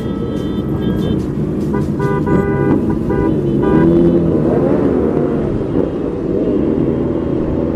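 A convoy of motorcycle engines running and revving, their pitch rising and falling through the middle, with a string of short horn toots about two to three and a half seconds in.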